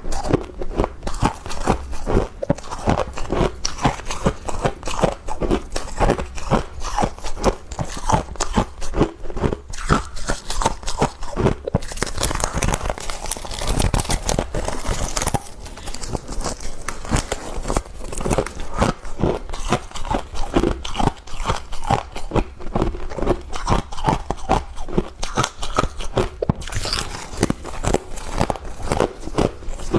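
Close-up crunching and chewing of freezer frost: rapid crisp crunches one after another, with a softer, hissier stretch around the middle.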